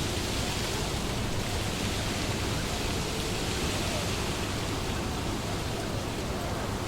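Wind blowing through trees: a steady rushing hiss of moving leaves that swells slightly in the middle.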